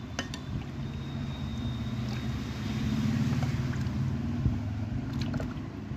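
A steady low motor hum, with a few light clinks of a metal ladle against an aluminium pot of milk.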